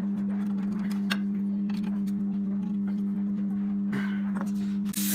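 Steady low machine hum holding one pitch, with a few faint light clicks over it, one about a second in.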